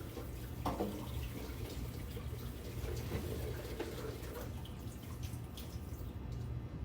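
Kitchen tap running as radishes are rinsed and rubbed under the water, with small knocks of handling, until the water stops about six seconds in.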